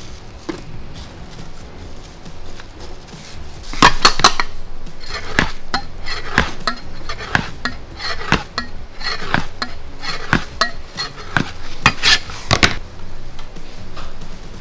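A metal cleaver clinking and knocking against a steel worktable and a metal baking tray as dough is sliced and the slices are set onto tarts. A quick, irregular run of sharp clinks starts about four seconds in, loudest at the start and again near the end.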